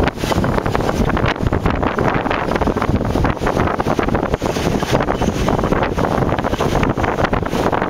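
Hurricane wind blasting across the microphone: a loud, gusting rush and rumble that never lets up.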